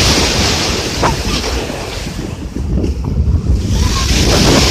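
Sea waves breaking and washing on the shore, with strong wind buffeting the microphone. The surf hiss swells at the start and again near the end.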